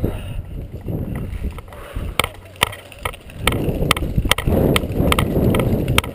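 Paintball markers firing: sharp pops at irregular intervals, at times several a second. From about halfway, a louder rough rustle of movement over grass joins the shots.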